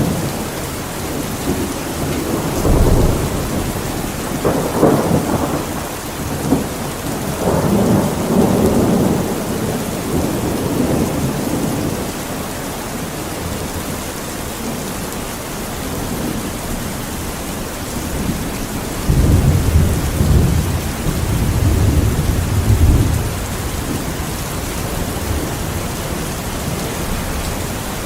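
Steady rain falling, with a long roll of thunder rumbling a few seconds in and another roll about two-thirds of the way through.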